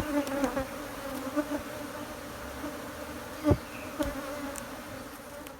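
Africanized honey bees buzzing steadily in a dense, disturbed swarm around a hive being removed. A short knock about halfway through.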